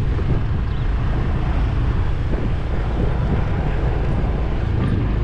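Motorbike engine running steadily while riding, with a continuous low rumble.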